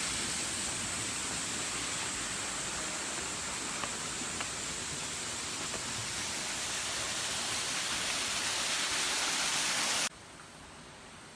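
Steady rushing hiss of flowing water, cutting off abruptly about ten seconds in.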